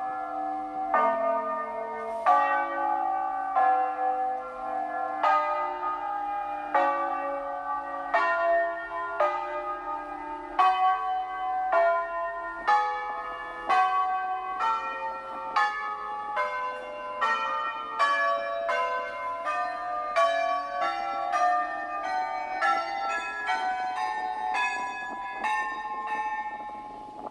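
Tower bells played as a melody, heard loud and close from inside the bell tower. Note follows note, a little over one a second at first and quicker in the second half, sometimes several bells together, each ringing on under the next.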